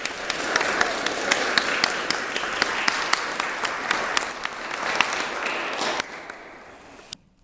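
Audience applauding, many hands clapping with single claps standing out; the applause dies away about six seconds in, and one last clap sounds near the end.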